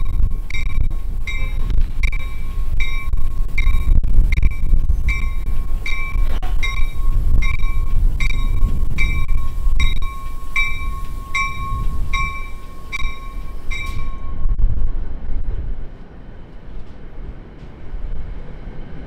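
NJ Transit push-pull commuter train's bell ringing about three strikes every two seconds as the cab car moves slowly along the platform, over the low rumble of the moving train. The bell stops about two-thirds of the way through, and the train rolls past more quietly.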